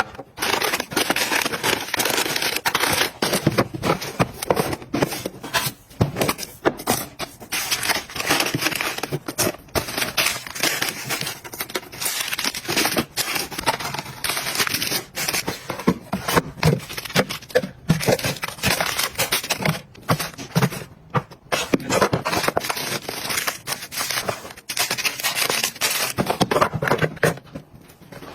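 Plastic packaging crinkling and crackling, with many quick clicks and taps as items are handled and set down.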